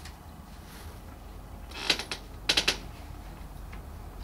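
Papers being handled on a desk: a short rustle about two seconds in, then a quick cluster of crisp rustles or clicks half a second later, over a steady low room hum.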